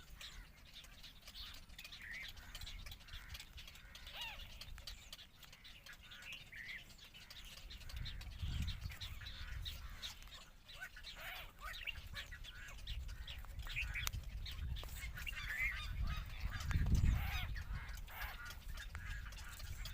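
Medium egret chicks calling at the nest in many short squawks, with a low rumble twice, about eight and seventeen seconds in.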